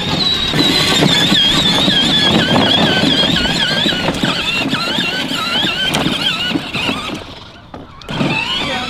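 24V Hollicy electric drift go-kart driving, with a high squealing whine that wavers up and down in pitch over the rumble of its wheels rolling. The sound dies down briefly near the end, then starts again.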